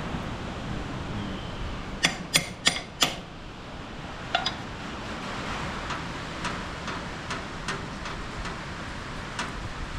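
Four sharp clicks or knocks in quick succession about two seconds in, another a little later, then a run of lighter, evenly spaced ticks, over steady wind and rain noise.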